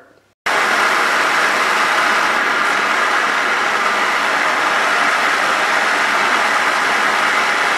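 MAP-gas torch burning steadily with a constant rushing hiss, its flame aimed into a small fire-brick furnace to heat a steel blade guide red-hot for hardening. The sound starts suddenly about half a second in.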